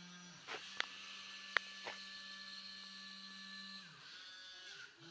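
Small geared DC motors of a plastic USB robot arm kit whirring steadily as the arm moves through a programmed sequence. One motor stops just after the start and another takes over until near the end, with two sharp clicks about a second and a second and a half in.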